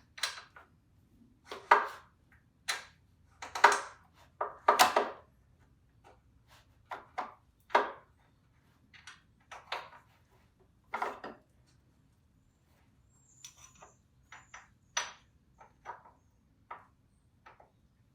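Irregular metal clinks and knocks of hand tools and shock-mount hardware as a new ATV rear shock is worked into line with its mount. The hardest knocks come in the first few seconds, and lighter, sparser taps follow.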